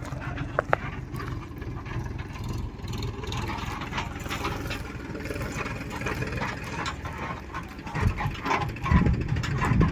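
Diesel engine of heavy farm machinery running steadily at low revs, with scattered clanks and a few heavier thumps near the end.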